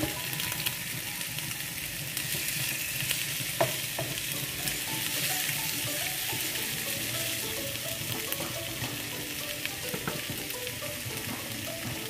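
Marinated fish pieces sizzling steadily in hot oil in a non-stick pan, with a wooden spatula scraping and giving a few sharp taps against the pan as the masala is spread over them.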